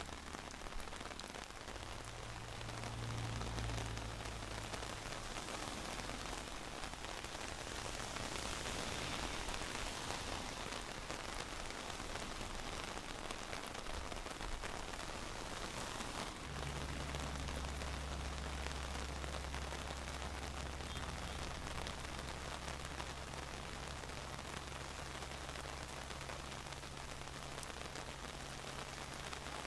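Steady rain falling, an even hiss. A low steady hum joins a little over halfway through.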